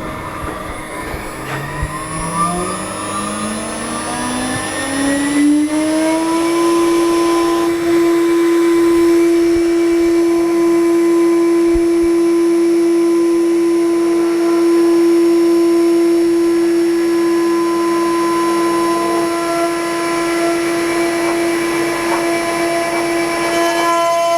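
6040 CNC router spindle spinning up: a whine rising steadily in pitch over about five seconds, then running at a steady high whine once it reaches cutting speed.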